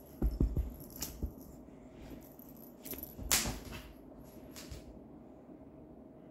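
Cats playing on a hard wooden floor: a quick series of soft thumps early on, then sharp clicks and a clattering rattle, the loudest about three and a half seconds in, as a small toy is batted and skitters across the boards.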